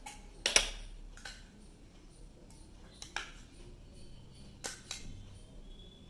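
Sharp clinks and knocks of kitchenware as curd is tipped and scraped from a small bowl into a glass mixing bowl: one loud clink about half a second in, then four lighter taps, the last two close together.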